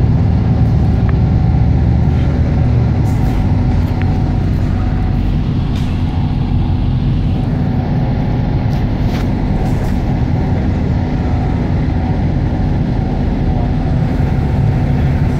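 Shuttle bus heard from inside the cabin while it drives, with a steady low engine and road drone and a few faint clicks.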